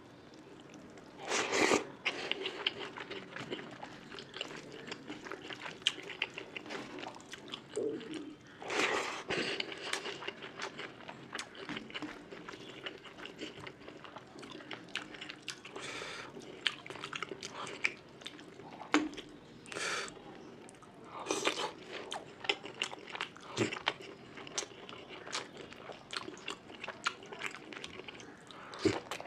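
Close-miked eating sounds: a person chewing and smacking on mouthfuls of spicy fish curry with rice, a steady run of small wet clicks with several louder bites and chews spread through.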